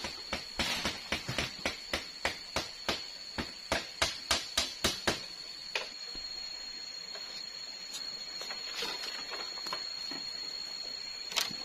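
A quick series of sharp knocks on the bamboo treehouse, about three or four a second, that stops about six seconds in, over a steady high-pitched insect drone.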